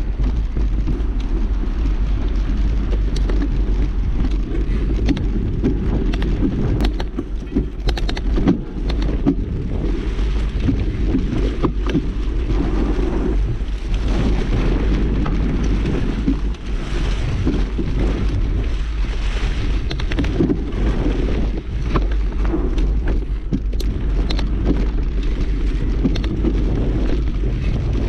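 Steady wind rumble on the microphone of a mountain biker's action camera, with frequent clicks and knocks from the bike being ridden over rough ground.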